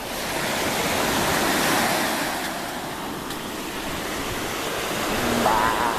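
Sea waves breaking and washing up the shore, swelling about a second in and again near the end. A brief wavering pitched sound comes near the end.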